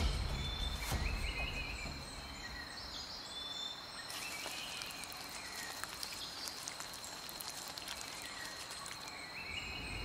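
Rainforest ambience: a steady high-pitched insect drone with short chirping calls scattered through it, and a low rumble that fades away in the first couple of seconds.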